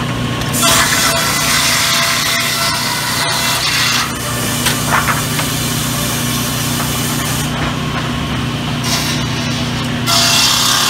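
Sawmill saws running with a steady motor hum and ripping through timber boards. A loud, harsh rasping cut starts just under a second in and lasts about three seconds, and another cut comes near the end.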